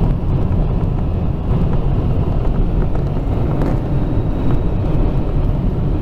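A car driving at road speed, heard from inside the cabin: a steady low rumble of road and engine noise.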